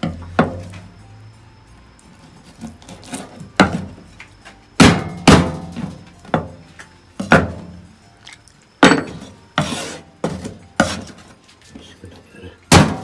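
Kitchen knife knocking against a wooden cutting board in about a dozen irregular, sharp knocks as conger eel heads, bones and guts are cut and scraped together.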